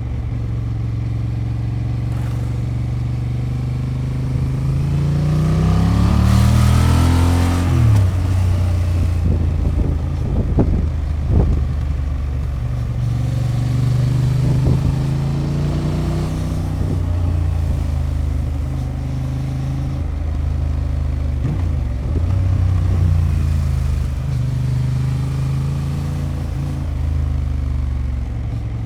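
Honda XL750 Transalp's stock 755 cc parallel-twin engine and factory exhaust running under way. The note climbs steeply under acceleration about a fifth of the way in, drops sharply at a gear change, then holds steady with a few milder rises and falls.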